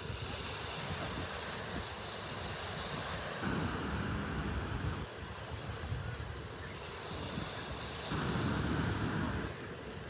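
Beach ambience: wind rumbling on a phone's microphone over the wash of small surf. The noise swells louder twice, for about a second and a half each time.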